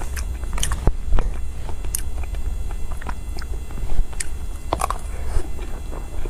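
Close-up eating sounds: a spoonful of soft cream dessert is taken into the mouth and chewed, with scattered small wet clicks of lips and spoon, the sharpest just before five seconds in, over a steady low hum.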